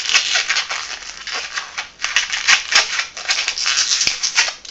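Latex modelling balloon being twisted into pinch twists between the fingers close to the microphone: a continuous scratchy rubbing of latex with many small clicks, one sharper click near the end.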